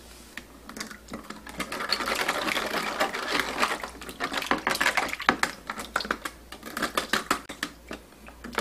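Plastic sink overflow pipe fittings shaken hard in a plastic basin of soapy water, rattling and knocking rapidly while the water sloshes and splashes. This agitation flushes the grime out of the pipe. It starts about a second in.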